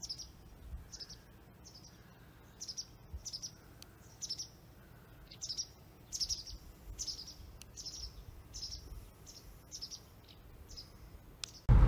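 A small bird chirping over and over: short high chirps, roughly one or two a second, over a faint background. Just before the end a loud low rumble cuts in suddenly.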